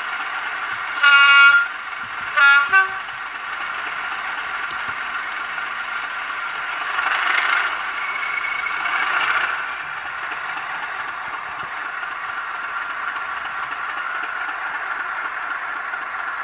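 Sampled Class 37 diesel engine sound from an N gauge model's LokSound V4 sound decoder, played through its small speaker, running steadily. A horn sounds once about a second in, then twice in short blasts, and the engine note swells twice in the middle as the model gets ready to pull away.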